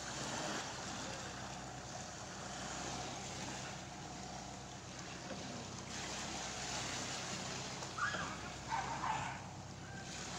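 Outrigger boat's engine running steadily, with wind and sea noise over it.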